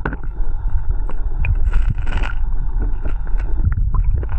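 Strong wind buffeting the microphone: a loud, continuous low rumble, with a few small clicks and knocks over it.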